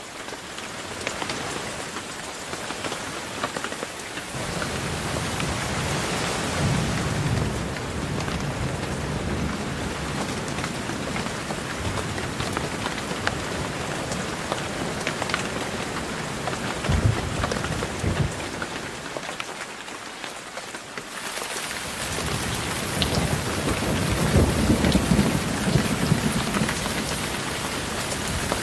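Steady heavy rain falling, with thunder rumbling low several times: a few seconds in, again past the middle, and a longer roll in the last third.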